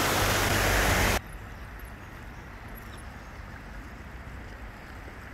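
A shallow stream rushing over stones, loud for about a second before cutting off abruptly, followed by a quieter steady outdoor hiss.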